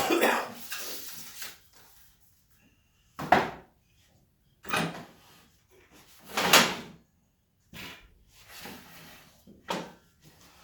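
Things being handled at a workbench: a series of about five short clatters and scrapes, with the loudest sharp knocks about three and a half and six and a half seconds in.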